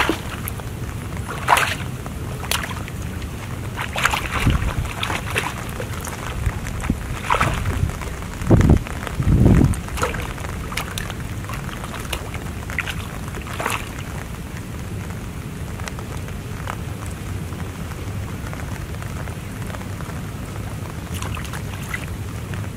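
Pond water splashing in irregular bursts as hooked fish thrash at the surface on bamboo-pole lines, over a steady low wind rumble on the microphone, with two louder low thuds a little before halfway.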